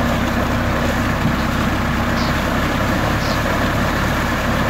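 Tractor engine running steadily to drive an irrigation water pump, mixed with the loud, continuous gush of a heavy stream of water pouring from the pump's outlet pipe and splashing onto the ground.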